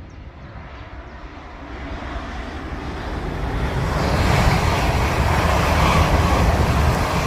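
Class 350 Desiro electric multiple unit passing on the main line: a rumble and rush of wheels on rail that grows as it approaches, loud for the last few seconds.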